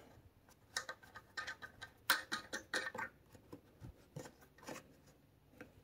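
Faint, scattered clicks and scrapes of a wing nut being threaded down onto the stud of a Honda GX160's air cleaner cover.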